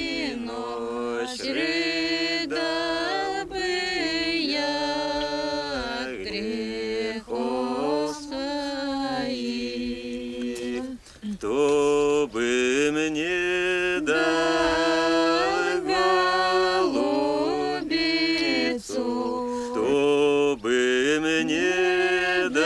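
Unaccompanied chanted singing: a slow melody of long held notes that step from pitch to pitch, becoming louder after a short break about eleven seconds in.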